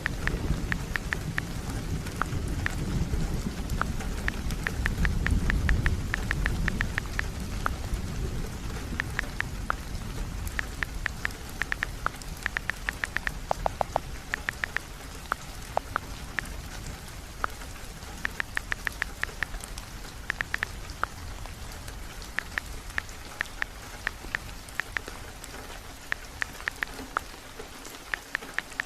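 Heavy rain falling steadily, with a low rolling rumble of thunder that swells and fades over the first several seconds. Many sharp little ticks come in quick clusters throughout.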